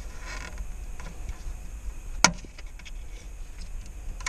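One sharp plastic click about halfway through, with a few faint ticks around it: small blade fuses being worked in and out of the excavator's fuse box.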